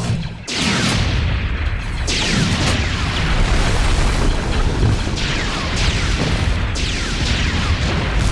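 Star Wars clone battle sound effects: a continuous rumble of booms and explosions, cut through four times by falling, whistling shots.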